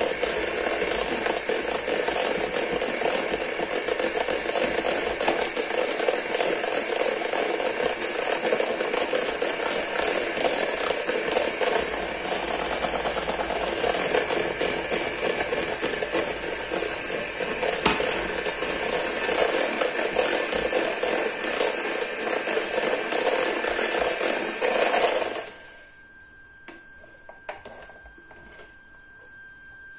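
Electric hand mixer running steadily as its beaters whisk pancake batter in a bowl; it is switched off about 25 seconds in.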